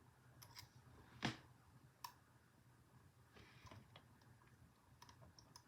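Faint, sparse clicks of a lock pick and tension wrench working the pins of a Federal 95 pin-tumbler padlock fitted with spool and serrated pins, one sharper click about a second in.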